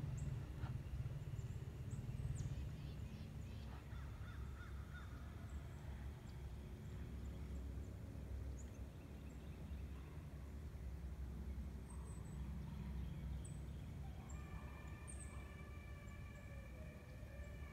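Outdoor ambience: a low steady rumble, short high bird chirps here and there, and a faint, distant drawn-out animal call in the last few seconds.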